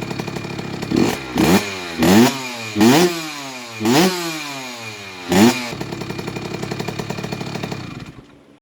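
Kawasaki KX65 two-stroke single-cylinder engine idling, blipped six times in quick revs that rise and fall in pitch, then settling back to idle and stopping near the end. The freshly rebuilt motor is being heat-cycled for break-in.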